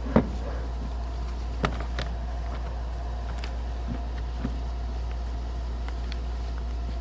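A few sharp plastic clicks and knocks as a dust-extraction vacuum attachment is fitted onto a cordless rotary hammer, the loudest just after the start and two more about a second and a half to two seconds in, over a steady low hum.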